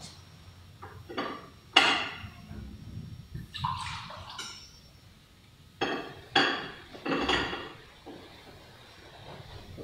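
Altar vessels (cruets and chalice) clinking and knocking as wine and a little water are poured into the chalice at the offertory. There are several separate clinks with short ringing and a brief pour about three to four seconds in.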